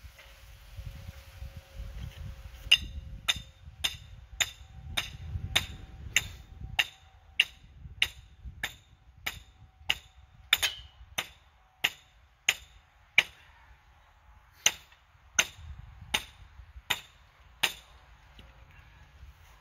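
Hammer driving a stake at the leg of a canopy tent frame: about two dozen sharp strikes at a steady pace of roughly one and a half a second, starting a few seconds in and stopping near the end. Low wind rumble on the microphone in the first seconds.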